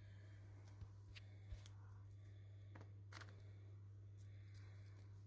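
Near silence: a steady low hum with a few faint, short clicks and light rustles.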